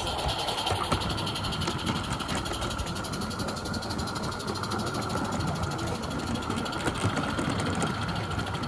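Roundhouse Katie live-steam garden railway locomotive running slowly: a steady hiss of steam with a fast, even beat over it, and the rumble of small wheels on the track.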